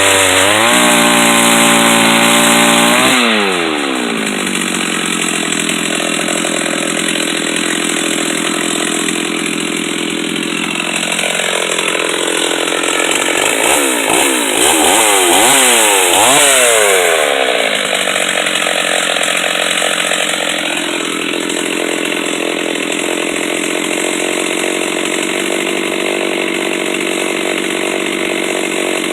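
Stihl 038 two-stroke chainsaw running a chainsaw mill at high revs. Its engine pitch climbs steeply about three seconds in, dips and recovers several times around the middle, then holds steady.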